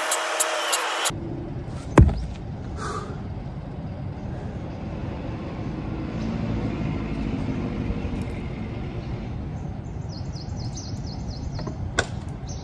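Steady outdoor background noise, with one loud sharp knock about two seconds in and a smaller one near the end.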